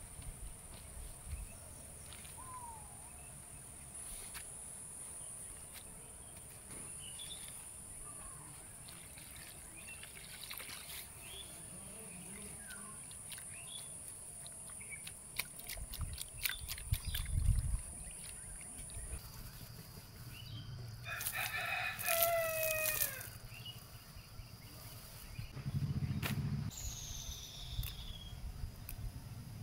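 A rooster crows once, loudly, about two-thirds of the way through, over a steady high-pitched drone of insects that changes pitch midway. Soft clicks and bumps from leaves being handled and washed in a bowl of water are heard throughout, with a short bird chirp near the end.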